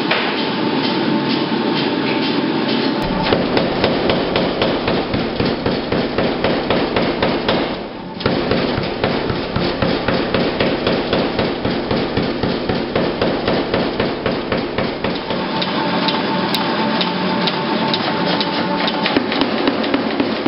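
Power hammer pounding red-hot steel bar stock in rapid, even blows as the bar is drawn out. The blows land with a deeper thud from about three seconds in until about fifteen seconds.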